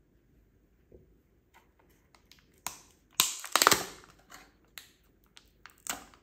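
A series of sharp clicks and clatters with quiet gaps between them. The loudest is a quick cluster of knocks about three seconds in, and another clatter comes near the end.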